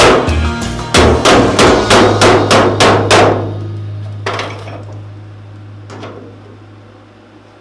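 Hammer blows on sheet steel, about eight quick, evenly paced ringing strikes, then two lighter taps a second or two apart as the hammering stops. This is the kind of hammering used to shape a car body panel.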